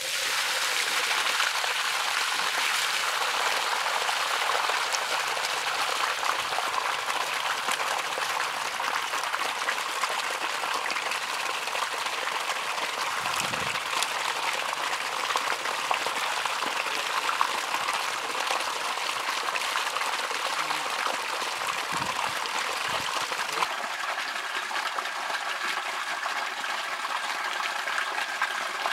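Water gushing from a pipe outlet and rushing along a channel dug in soil: a steady, loud rush of flowing water. A faint steady hum joins about three-quarters of the way through.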